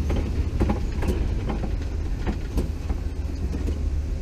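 Open-sided safari truck driving over a rough track: a steady low rumble with frequent irregular knocks and rattles from the vehicle.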